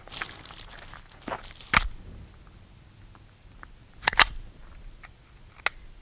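Sharp metallic clicks as an H&K VP70Z pistol is loaded and readied by hand, with one loud click a little under two seconds in and a quick double clack about four seconds in. No shot is fired.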